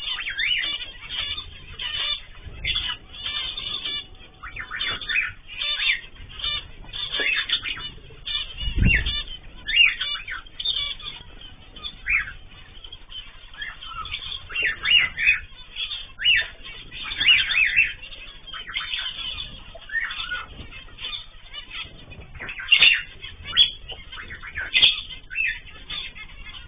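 A mixed group of cage birds (cockatiels, zebra finches and canaries) chirping and calling all at once in a dense, overlapping chatter. A low thump comes about nine seconds in.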